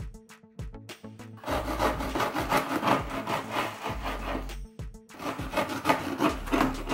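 A kitchen knife sawing through a baked biscotti log on a wooden cutting board, in quick back-and-forth strokes. The cutting starts about one and a half seconds in, pauses briefly, then starts again near the end.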